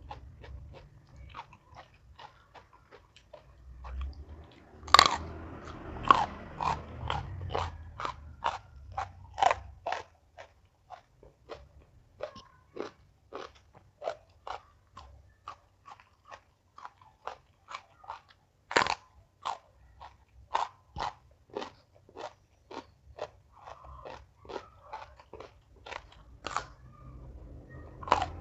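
Close-up chewing of crunchy raw vegetables: a loud bite about five seconds in, then steady crunching chews about two a second, with another loud crunch near the middle.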